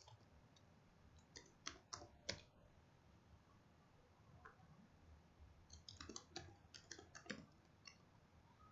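Faint keystrokes from typing on a computer keyboard: a few clicks about a second and a half in, then a quicker run of them toward the end.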